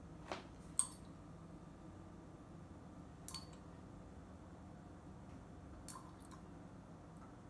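Eyedropper clinking against a small glass jar of diluted acrylic paint: four light clicks a few seconds apart, the second the loudest with a brief glassy ring, over quiet room tone.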